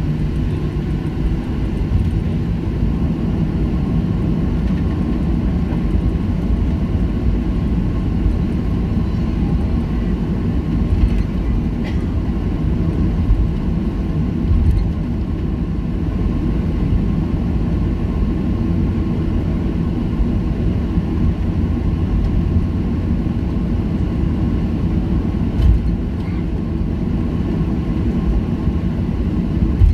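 Cabin noise of a Boeing 737-800 taxiing, heard from a seat over the wing: a steady low rumble of the CFM56 jet engines at taxi power and the wheels rolling along the taxiway. A few small bumps come through, one about 11 seconds in and one near the end.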